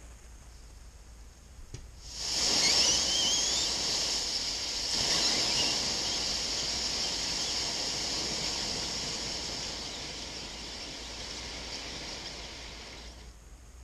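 A punctured lithium-polymer (LiPo) battery cell venting in thermal runaway: a sudden loud hiss of escaping gas starts about two seconds in, with brief whistling squeals at first. It surges again around five seconds in, then slowly weakens and cuts off shortly before the end.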